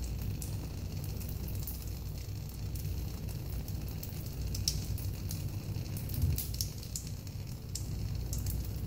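A shower of burning sparks crackling and fizzing in quick, irregular snaps over a steady low rumble.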